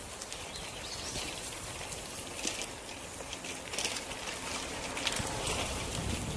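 Bicycle tyres rolling over a crushed-gravel trail: a steady crunching hiss with scattered small crackles, and wind rumbling on the microphone.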